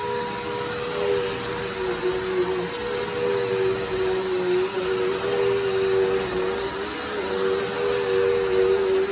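Corded upright vacuum cleaner running steadily on a rug, its motor whine wavering slightly in pitch.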